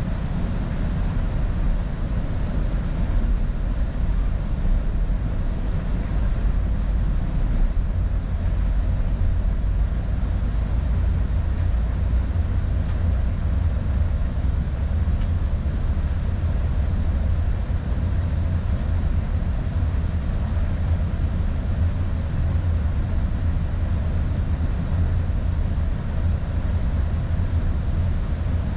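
Northstar commuter train running, heard from on board: a steady low rumble that holds level throughout.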